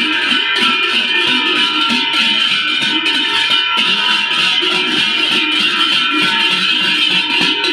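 Loud music with plucked strings, playing steadily.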